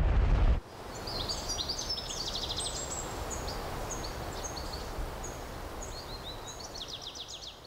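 A deep rumble cuts off about half a second in. Forest ambience follows: a steady soft hiss with small songbirds chirping and giving quick high trills.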